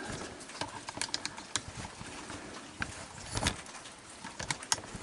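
A raccoon eating, chewing and smacking on its food: a string of irregular soft clicks and crunches, with one louder crunch about midway.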